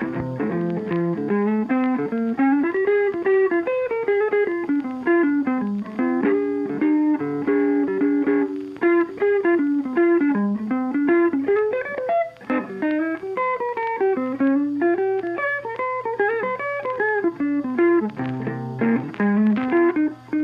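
Background music: a guitar-led instrumental with a quick plucked melody.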